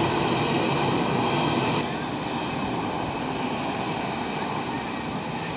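Airliner engines running at take-off power: a steady engine noise laced with several steady whining tones, getting a little quieter and duller about two seconds in.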